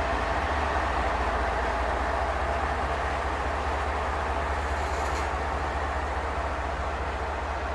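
Intermodal freight cars, double-stacked containers on well cars, rolling steadily past on the rails: an even rumble of wheels on track.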